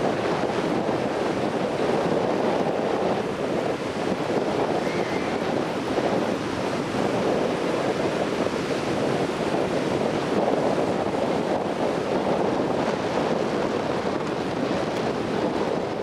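Steady wash of sea surf mixed with wind on the microphone.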